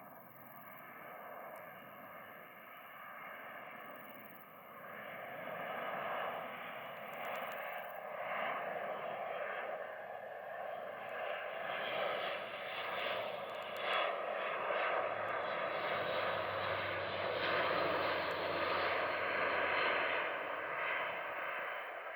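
Airbus A400M Atlas four-engine turboprop flying past, its eight-bladed propellers making a steady drone with several held tones. It grows louder as the aircraft approaches, is loudest in the second half, and eases slightly near the end.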